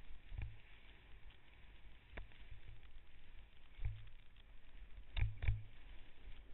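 Wind rushing over a body-mounted camera's microphone as a snowboard is ridden across snow under a kite, with a low rumble throughout. Five sharp knocks from the board and camera jolting over bumps, the loudest two close together near the end.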